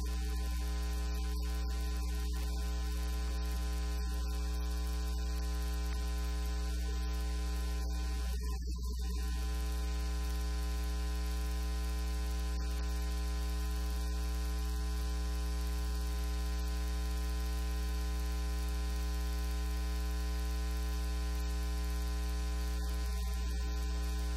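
Steady electrical mains hum, a low buzz with many overtones, at a constant level throughout; it briefly thins out about eight and a half seconds in.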